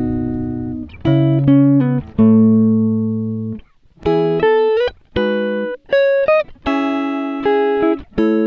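Background music: a guitar plucking single notes and chords, each note ringing out and fading before the next.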